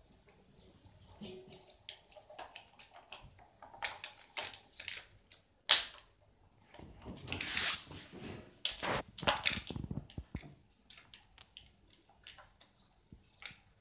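Hard plastic toys clicking, knocking and clattering as a white toy car-transporter truck and its small toy cars are handled and pushed together, with a louder knock about six seconds in.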